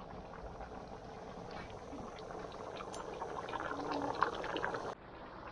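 Brown meat broth for locrio boiling in a large metal pot over a wood fire: a steady bubbling with small scattered pops.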